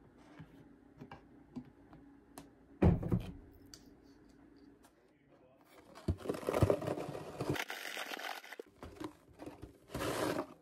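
Close handling noises: rustling and crinkling with scattered small clicks, a thump about three seconds in, and a longer stretch of rustling later on.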